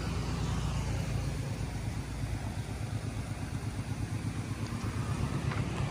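Isuzu Borneo diesel truck engine idling, a steady low rumble with an even pulse, through an exhaust enlarged to give it a deeper note.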